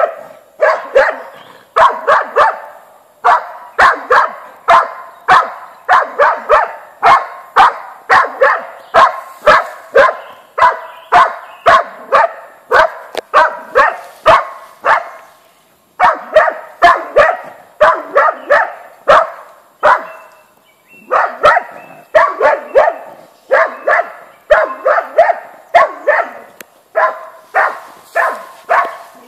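Hunting dog barking at wild boar in rapid, steady volleys of about two to three barks a second, baying them, with short breaks about fifteen and twenty seconds in.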